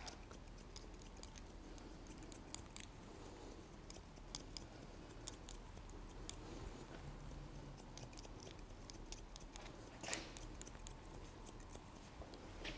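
Faint, irregular snips and clicks of hairdressing scissors cutting short hair, with a somewhat louder click about ten seconds in.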